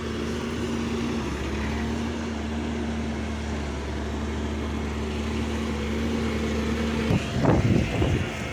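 Diesel engine of a heavy earthmoving machine running steadily, then surging louder with shifting pitch near the end, as under load.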